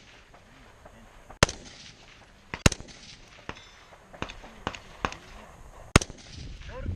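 Rifle shots fired from the barricade, three loud sharp cracks spaced about a second and then about three seconds apart, with several fainter cracks in between.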